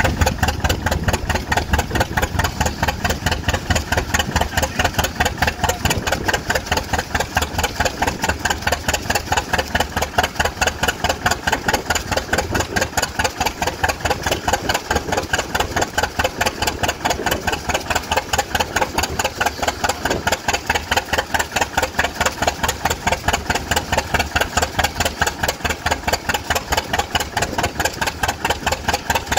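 John Deere A two-cylinder tractor engine running steadily under load, belted to a Baker fan, with an even, rapid, rhythmic exhaust beat. It is being run in on the load after recent engine work.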